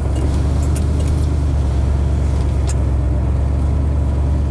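Pickup truck heard from inside its cab while driving: a steady, loud low engine and road drone, with a couple of faint clicks.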